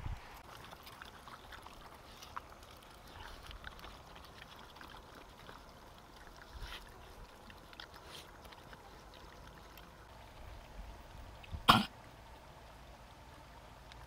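Several dogs eating a wet mash of cooked snails and taro off banana leaves: faint scattered chewing and lapping clicks. Near the end comes one short, loud cough-like snort.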